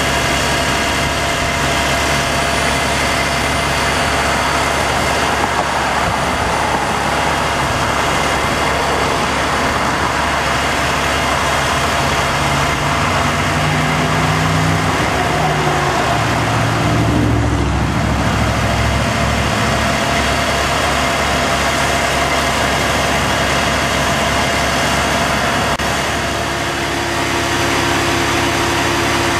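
Heavy lugger truck's diesel engine idling steadily, with a brief rise and fall in pitch about halfway through.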